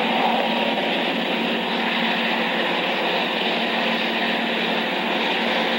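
Diesel-electric freight locomotive running past with its train, a steady engine drone mixed with rolling noise. Heard thin and hissy through an old film sound track.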